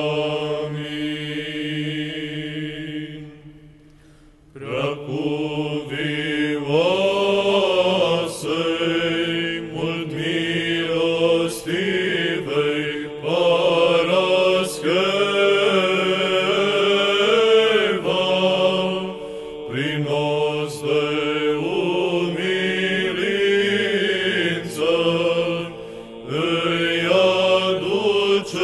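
Male church choir singing in Orthodox chant. A long held 'Amin' lasts about three seconds and is followed by a short pause. Then a chanted hymn in Romanian is sung over a steady held drone note.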